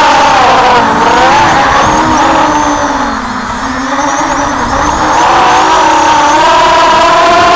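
FPV quadcopter's brushless motors whining, loud. The pitch sinks from about a second in as the throttle eases, bottoms out around the middle, then climbs back to a steady high whine near the end.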